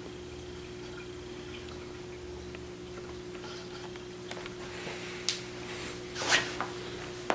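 Steady low hum, with a few sharp clicks and short rustling bumps in the second half as the camera is handled and someone moves up close to it.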